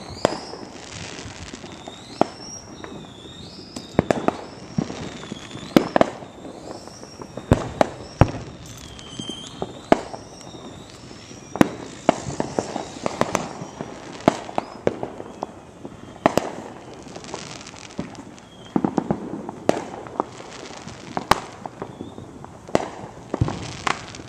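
Fireworks going off in a steady string: sharp bangs and reports at uneven intervals, some close together, with crackle and echo between them.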